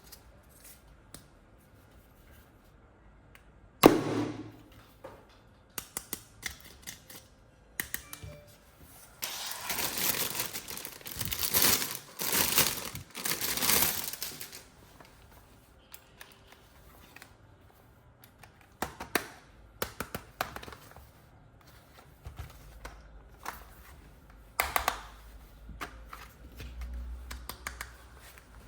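Toy packaging being handled and opened: scattered clicks and knocks, a sharp thump about four seconds in, and about five seconds of tearing and crinkling in the middle.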